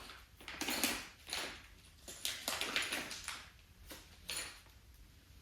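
Handling noises from assembling a cat house: a series of short, irregular rustles and knocks as parts and a screwdriver are moved and fitted together.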